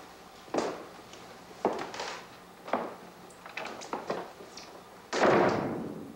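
A few slow, evenly spaced thuds about a second apart, then a heavy door shutting with a loud bang about five seconds in that rings on briefly in the room.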